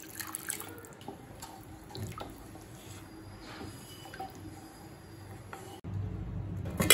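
Water pouring and dripping into thick onion-tomato masala in a kadai, then a spatula stirring the thinned gravy with faint scrapes and clicks. Near the end a low hum comes in suddenly, followed by a sharp click.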